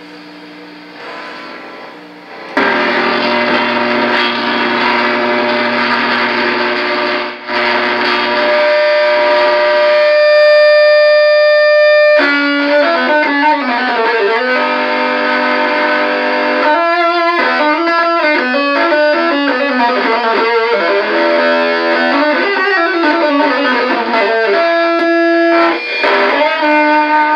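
Electric guitar played through a 1458 op-amp Muff Fuzz pedal into a 1959 Guild 66-J amp. Quiet at first, it breaks into loud fuzzy distorted chords about two and a half seconds in, holds one long note, then plays a run of single-note lines.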